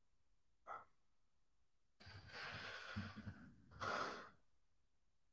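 Quiet breathing close to the microphone: a long soft exhale about two seconds in and a short sharp breath near four seconds, otherwise near silence.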